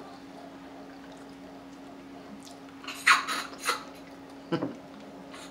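Close-up wet eating sounds from a seafood boil: a quick cluster of loud slurps and smacks about three seconds in, then one more short one, as food is bitten and sucked clean of buttery sauce. A faint steady hum runs underneath.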